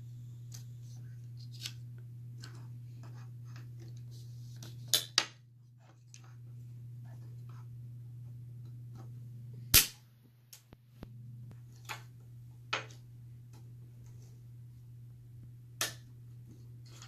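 Sharp wooden clicks and snaps from a small wooden rubber-band model ballista being handled, loaded and shot: a quick double click about five seconds in, the loudest snap about ten seconds in, and a few lighter clicks after. A steady low hum runs underneath.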